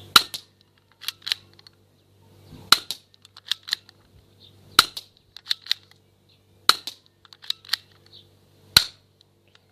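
BB gun firing five sharp shots, about two seconds apart, with quieter clicks between the shots.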